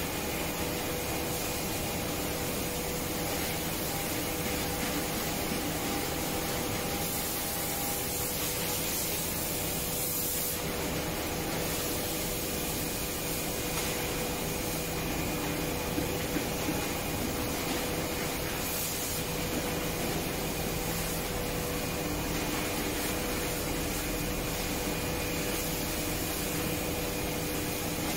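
Steady machine noise: a constant rushing hiss with a faint, unchanging hum underneath, from a running machine.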